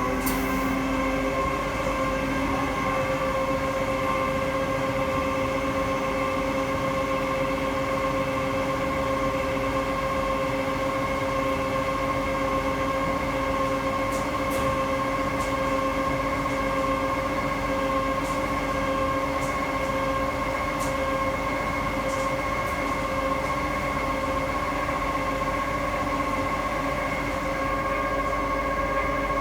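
Washing machine spinning at full speed: the motor and drum give a steady, even whine that levels off in pitch right at the start, with a few faint ticks midway.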